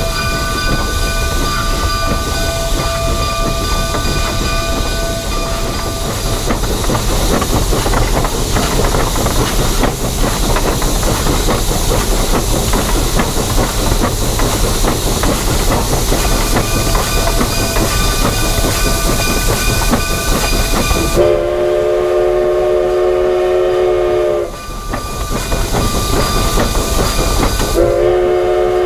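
Denver & Rio Grande Western K-36 narrow-gauge steam locomotive running with a steady hiss and rail clatter, then sounding its steam whistle, a chord of several steady tones: one blast of about three seconds beginning a little after twenty seconds in, and a second starting near the end.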